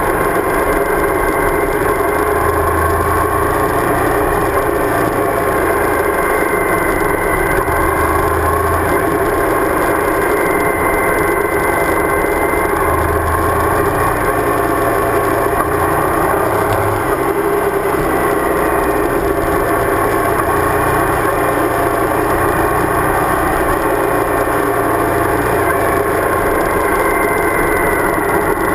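Suzuki V-Strom DL1000's V-twin engine running steadily under way, heard over the bike-mounted microphone along with wind and road noise; the engine note rises and falls a little with the throttle.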